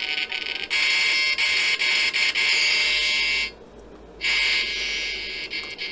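Static hiss from a DIY FM radio kit's speaker as it is tuned with no station coming in. The hiss cuts out briefly about three and a half seconds in, then returns.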